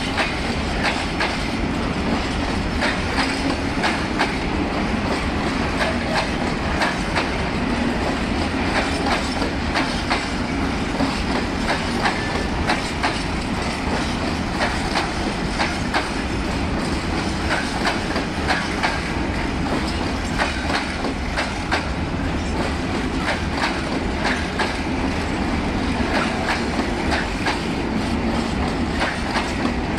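Empty freight train of Tads-z covered hopper wagons rolling past, with a steady clickety-clack of wheels on the rails.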